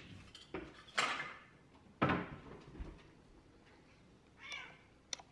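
Knocks and thuds of a kitchen cupboard door being opened and shut, the two loudest about a second apart, followed by softer handling and a few small clicks near the end.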